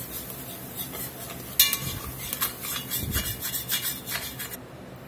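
Spoon scraping and clinking against the bottom and sides of an enamelled cast-iron pot, stirring simmering broth to lift the browned fond while deglazing. A run of clicks and scrapes begins sharply about a second and a half in, over a soft bubbling hiss that drops away near the end.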